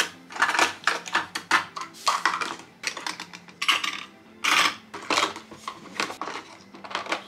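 Jar lids and red plastic measuring cups clinking and rattling as they are set down and shuffled into a kitchen drawer's plastic organizer. The sound is an irregular run of clicks and knocks, a few of them louder.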